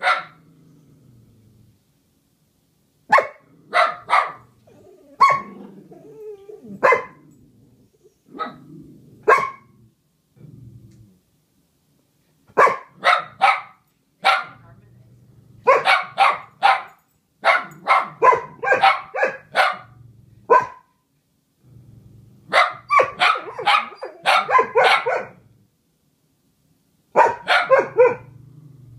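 Two dogs vocalising together: runs of short, sharp barks, from a single bark to quick strings of six or more, broken by pauses of a second or two, with quieter low grumbling between the runs.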